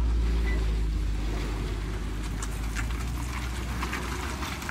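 Steady low engine rumble from a vehicle running, mixed with wind on the microphone. Scattered light crunching clicks come in about halfway through.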